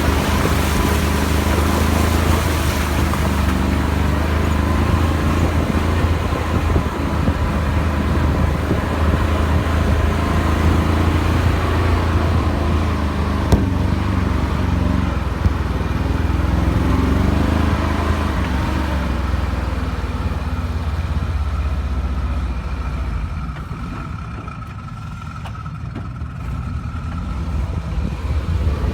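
Off-road vehicle engine running with a deep, steady rumble, its revs rising and falling as it works. It eases off about three-quarters of the way through, then builds again near the end.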